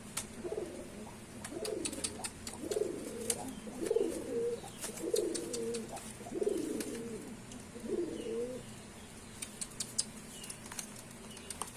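Male domestic pigeon giving its courtship coo: about seven low, rolling coos, roughly one a second, then a few short clicks near the end.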